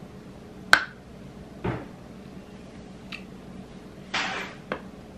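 A crisp snap as a hard piece of red edible clay is bitten off, followed by a few quieter crunches and clicks as it is chewed.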